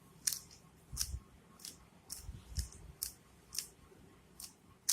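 A Rubik's Cube being turned through an F2L algorithm, each layer turn a short plastic click, about nine in quick, uneven succession.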